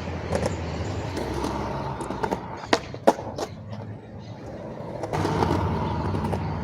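Skateboard wheels rolling on concrete, with sharp clacks of the tail popping and the board landing a little under halfway through, then rolling on again, louder, near the end.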